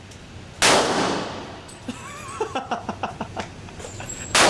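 Two gunshots, one about half a second in and one near the end, each sharp and loud with a ringing tail that dies away over about a second.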